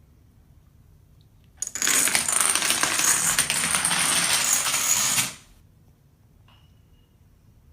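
Small hard objects rattling and clinking in a dense run of clicks for about three and a half seconds. It starts about a second and a half in and cuts off sharply.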